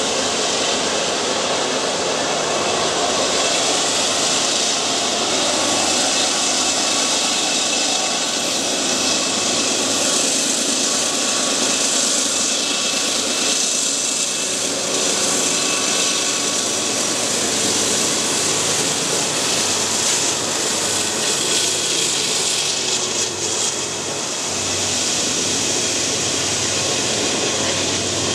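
Diesel freight locomotives working upgrade and passing close by: a steady, loud engine drone that holds through, with the roll of wheels on rail as the units go past.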